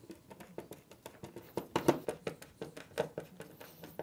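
Hand screwdriver driving a metal cam dowel into a chipboard panel: a run of small, irregular clicks and ticks from the tool and the turning dowel, a little louder a few times.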